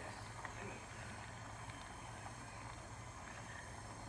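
Gas soldering torch flame hissing steadily while heating a piece of gold for soldering, over a low electrical hum.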